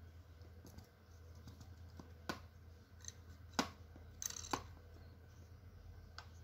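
Sharp plastic-and-metal clicks of a reciprocating saw's tool-free blade clamp being twisted and a saw blade fitted into it. A few single clicks come about two seconds in, a louder one after that, then a quick rattle of clicks around four seconds in.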